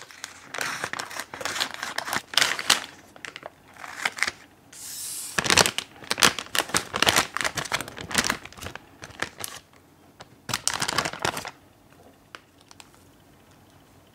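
Crinkly plastic bag of mega marshmallows rustling and crackling in bursts as it is handled and tipped, falling quiet about three-quarters of the way through.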